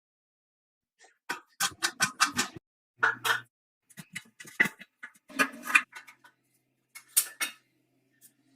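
Irregular sharp metal clinks and knocks, a dozen or so short hits in quick clusters, from tools and metal parts being handled in a workshop.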